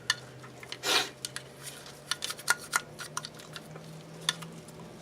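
Light, irregular clicks and taps of small metal carburetor parts and tools being handled during hand cleaning, with one short hiss about a second in.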